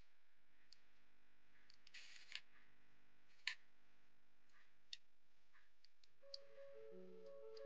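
A few faint clicks and light scrapes as a wire wick is pushed through candle wax and its metal tab taps the aluminium tealight cup; one click about three and a half seconds in is the loudest. Marimba-like music starts near the end.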